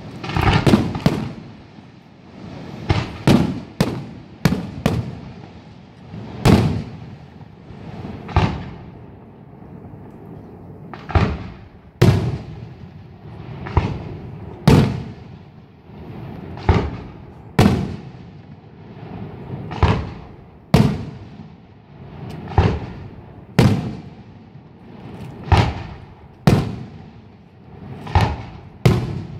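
Aerial firework shells bursting in a steady series of loud bangs, about one every second or two, each followed by a rolling echo.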